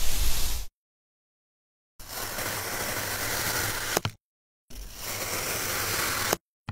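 Knife slicing through a block of kinetic sand: two steady gritty hissing slices, each ending in a sharp click, with silent gaps between clips. It opens with the last moment of a crumbly sand squeeze.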